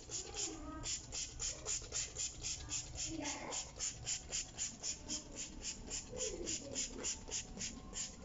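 Plastic trigger spray bottle pumped rapidly and evenly, spritzing a cleaning solution in short hisses about four or five times a second.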